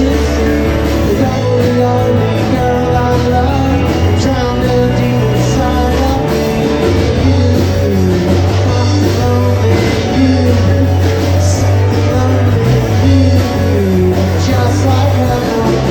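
Live rock band playing with electric guitar, bass and drums, with some singing.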